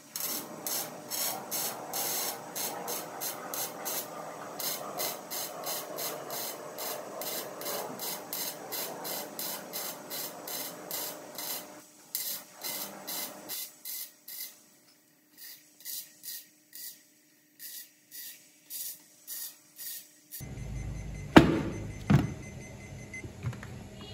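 Electric welding on a steel tube frame: the arc crackles in short, regular pulses about three a second, in gaps after about 14 s. Near the end, two sharp knocks, the first the loudest thing here.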